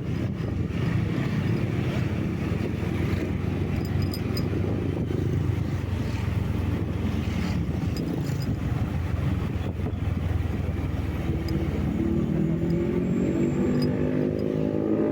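Steady engine and road noise from a vehicle on the move. Over the last few seconds an engine's pitch rises as it speeds up.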